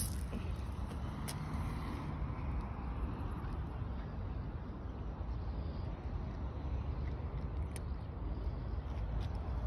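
Steady low outdoor background rumble of an urban street, with a few faint clicks.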